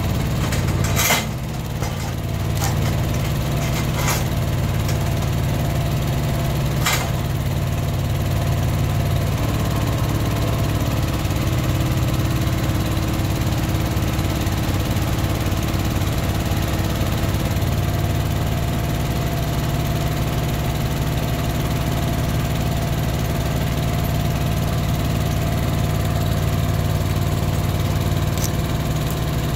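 An engine running steadily at a low, even drone, with a few sharp knocks in the first seven seconds.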